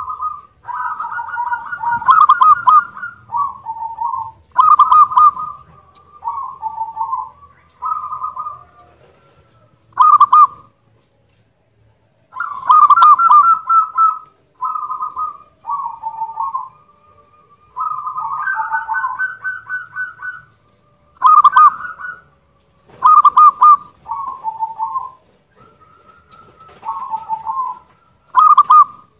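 Zebra dove (perkutut) cooing loudly in repeated phrases of rapid, rattling staccato coos, each phrase a second or two long with short pauses between.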